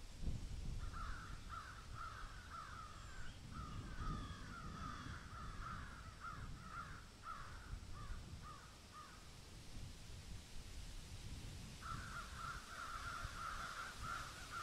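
Crows cawing: a long run of quick, closely spaced caws lasting about eight seconds, a pause, then another dense burst near the end, over a low rumble.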